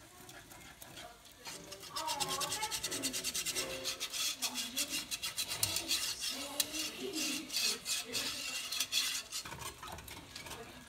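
A utensil stirring and scraping in a pan of sausage gravy: rapid rasping strokes that start about two seconds in and die away near the end.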